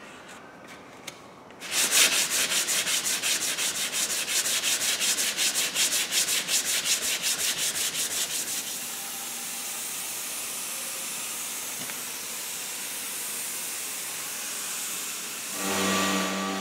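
Sandpaper rubbed by hand over a car's plastic bumper in quick back-and-forth strokes, about six a second, turning into a smoother, steady rubbing for the next several seconds. Near the end a power sander with dust extraction starts up with a steady hum.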